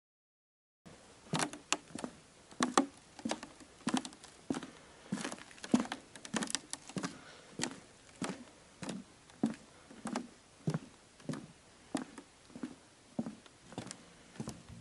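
Footsteps on a wooden boardwalk at a steady walking pace, a little under two steps a second, each step a short knock with a dull thud of the planks. They start about a second in.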